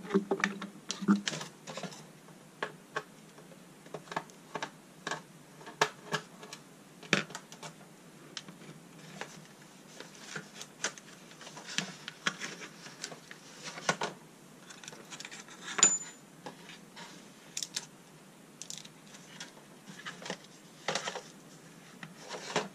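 Scattered clicks, taps and clinks of a plastic and aluminium LED batten light being taken apart by hand, its end cap pulled off and its diffuser worked out of the housing. The loudest is a knock with a brief high squeak about two-thirds of the way through.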